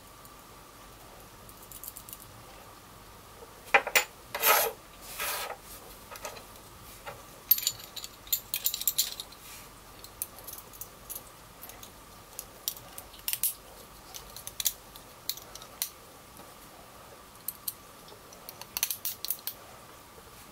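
Small metal parts of a homemade knife sharpener clicking and clinking in the hands as bolts and nuts are fitted to a galvanised steel bracket holding two abrasive discs. The clicks are scattered, with louder clusters about four seconds in, around eight seconds and near the end.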